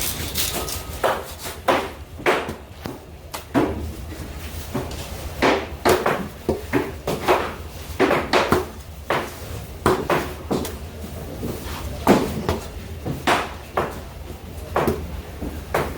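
A knife chopping through a skipjack tuna, giving a long run of sharp, irregular knocks about one or two a second, over a low steady hum.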